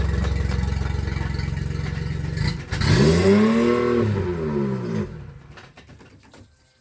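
Yamaha four-stroke outboard motor running steadily, then revved up and back down about three seconds in, after which its sound dies away.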